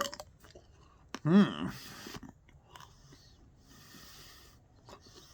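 A person chewing chocolate, with small wet mouth clicks and soft breaths, and one short voiced sound about a second in.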